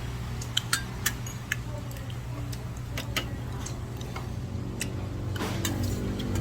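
Scattered sharp clicks, several in the first two seconds and a few more later, over a steady low hum. A louder rumble builds near the end.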